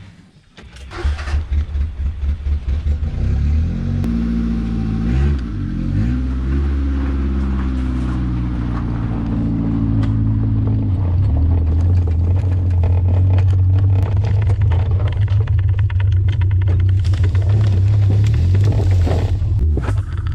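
Ford Laser's four-cylinder engine starting about a second in, then running as the car is driven: the engine note rises and falls for several seconds, then settles into a steady low drone.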